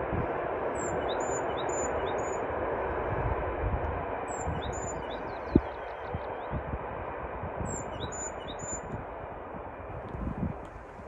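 Distant train running along the hillside line, a steady rumble that slowly fades as it draws away. Small birds chirp in short groups of high notes three times over it, and there is a single sharp click about halfway through.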